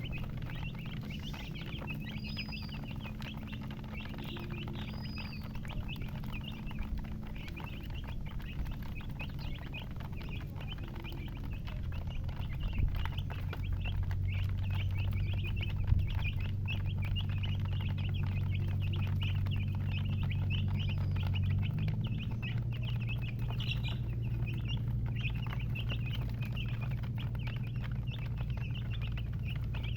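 Many baby chickens (chicks) peeping continuously, their short high chirps overlapping, over a low steady hum that gets louder about twelve seconds in.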